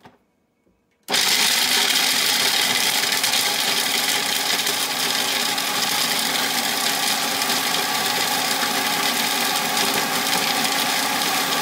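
Electric food processor switched on about a second in, its motor running steadily as the blade chops almonds, walnuts and cashews into chunky pieces.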